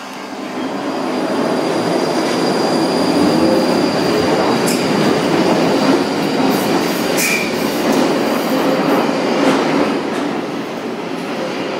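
London Underground 1995 Stock train pulling out of the platform. Its running rumble builds over the first two or three seconds, with a thin steady high whine and a few brief wheel squeals, then eases off near the end as the train draws away.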